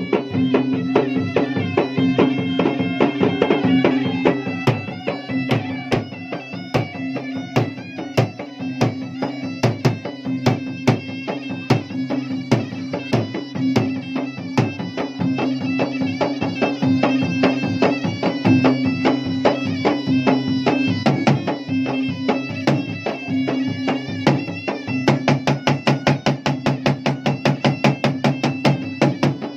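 Traditional Bugis-Makassar gendang (ganrang) drumming: two double-headed barrel drums beaten fast with a stick and bare hands, under a reedy wind instrument holding a steady drone and melody. The drumming grows denser near the end.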